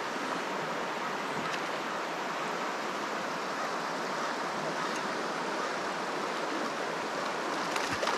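Steady rushing of a river's current flowing over rocky pocket water. Near the end, a hooked fish splashes at the surface.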